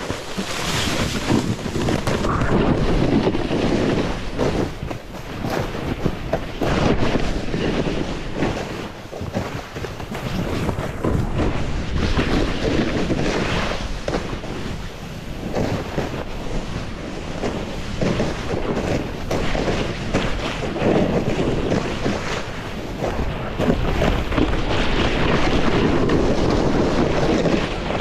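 Wind buffeting the microphone over the rush and scrape of a snowboard sliding through snow, a continuous noise that rises and falls every few seconds.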